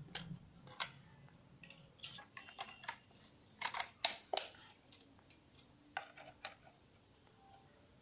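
Irregular small plastic clicks and scrapes as hands fit the battery cover on a toy RC truck's plastic remote control and work its screw with a small screwdriver, with a quick cluster of clicks about four seconds in.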